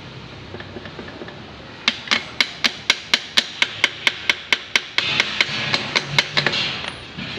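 Hammer tapping on a truck differential's adjuster in a quick run of sharp metal blows, about four a second, starting about two seconds in. The taps set the mesh of the crown wheel against the pinion, taking up backlash left by a worn ring-and-pinion that made the differential whine.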